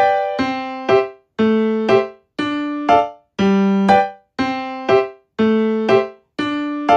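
Background music: a simple keyboard tune of single notes and chords struck about once or twice a second, each left to ring and fade.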